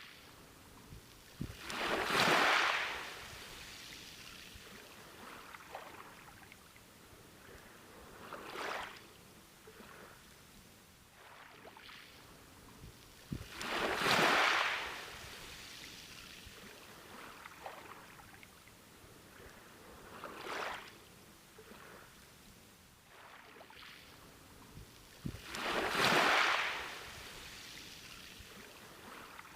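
Ocean waves breaking on a beach. A big wave comes about every twelve seconds, three in all, each starting with a low thud and washing out in a long hiss, with two smaller waves between them over a steady background wash.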